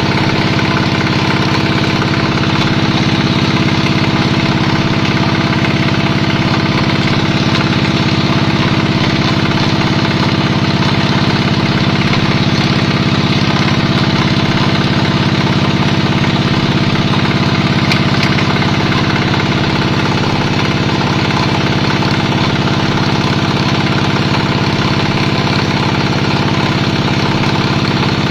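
Vertical pellet mill running steadily: a loud, unchanging mechanical drone with a constant hum.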